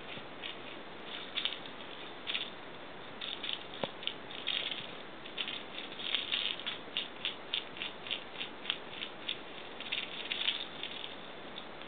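Cat's claws scratching and catching on a hemp-rope scratching post as it swats at a toy mouse on a springy wire: a run of short, scratchy rasps, some coming in quick clusters.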